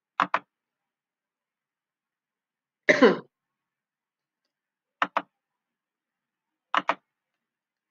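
Four brief sounds separated by dead silence: a quick double click near the start, a louder short cough about three seconds in, and two more quick double clicks later, typical of a computer mouse.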